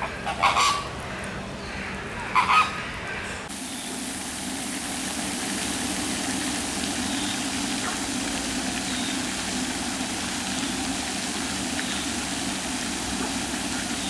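Flamingos honking: two short goose-like calls in the first few seconds. After that the calls stop and a steady, even noise carries on.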